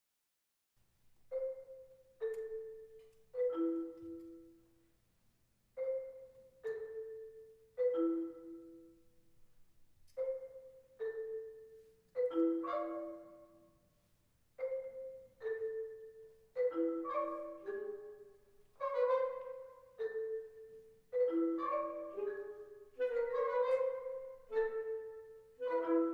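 Tuned mallet percussion from a concert band playing a falling three-note figure over and over, each note struck and left to ring, the figure returning about every two seconds. From about halfway in, more and higher notes join, and the pattern grows denser and louder.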